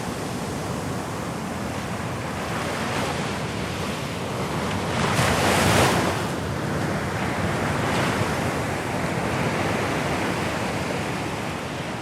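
Atlantic Ocean waves lapping on the shore, a steady wash of surf with one larger wave breaking and swelling loudest about halfway through, and smaller swells before and after it.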